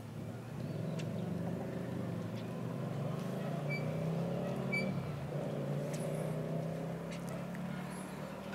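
A motor vehicle's engine running, a steady hum that swells about half a second in, holds, and eases off slightly near the end.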